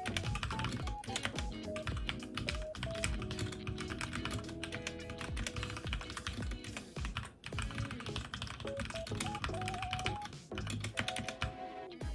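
Fast, continuous typing on a HyperX Alloy Origins Core mechanical keyboard with red linear switches, with a brief pause about seven seconds in. Background music plays under the keystrokes.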